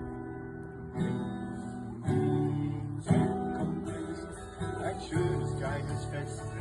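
Acoustic guitar strumming chords in an instrumental passage, with a strong strum about once a second.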